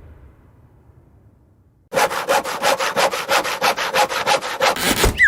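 Hand saw cutting wood in quick back-and-forth strokes, about six or seven a second, starting about two seconds in after the fading tail of an earlier sound. Near the end it gives way to a short falling whistle.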